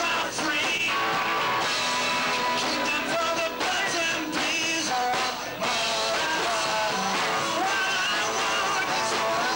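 Live rock band playing: a man singing over electric guitar.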